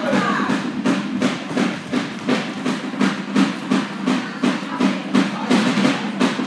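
Steady rhythmic percussion beating time for a group item: sharp strikes about three a second.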